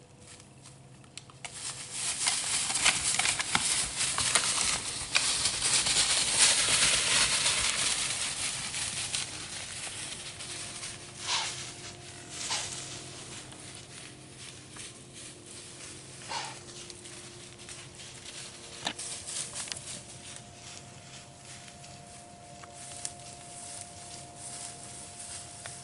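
Whitetail bucks fighting in dry leaves and brush: a loud burst of crackling and rustling for about eight seconds, then a few separate sharp clacks as the scuffle dies down.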